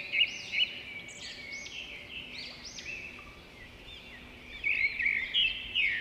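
Several birds chirping together, many quick overlapping rising-and-falling notes, a little louder near the end.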